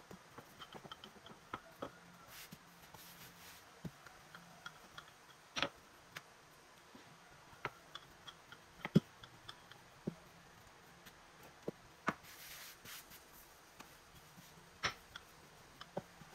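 Quiet kitchen handling of bread dough: scattered light taps and clicks of hands and utensils on the counter, about a dozen, with a few soft rubbing noises in between.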